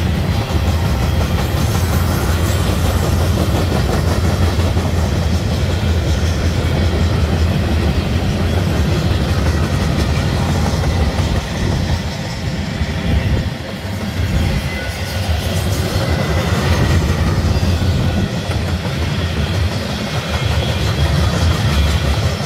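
Freight train rolling past: a steady, loud rumble of railcar wheels on the rails.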